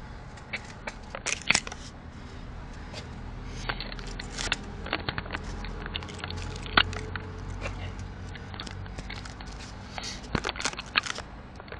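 VAZ-21093's four-cylinder petrol engine idling steadily as it warms up, a low hum heard close up in the engine bay. Irregular sharp crackles and clicks run over it.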